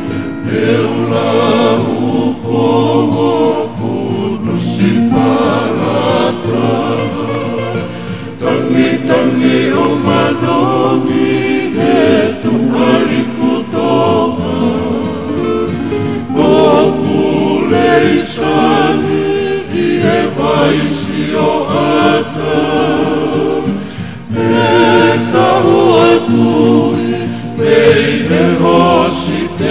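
Tongan kava-club song: several men's voices singing in harmony, accompanied by acoustic guitars.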